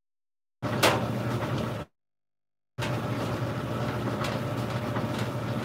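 Large planetary stand mixer running, its beater churning batter in a steel bowl: a steady machine hum with a sharp knock about a second in. The sound cuts out completely twice, for about a second each, at the start and about two seconds in, the kind of gap a lagging live-stream connection leaves.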